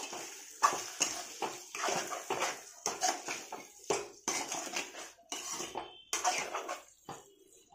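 Spatula scraping and knocking against a steel kadai as prawns are stirred and tossed, in irregular strokes about once or twice a second that stop near the end.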